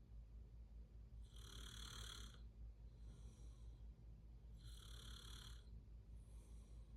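A person snoring faintly in sleep: slow, rhythmic breaths, a louder one about a second in and again near five seconds, each followed by a fainter one. A steady low hum underneath.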